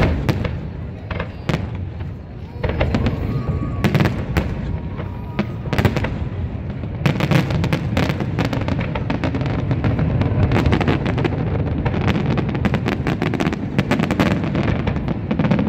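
Aerial fireworks shells bursting over open water in a series of bangs. The bangs are scattered at first, then come thick and fast from about seven seconds in, as in a finale-style barrage.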